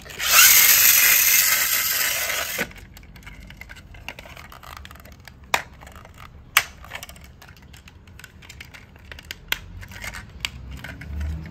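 Handling of a plastic toy dump truck: a loud rustling scrape for about two seconds near the start, then quieter fumbling with a few sharp plastic clicks as the tipper bed is taken off.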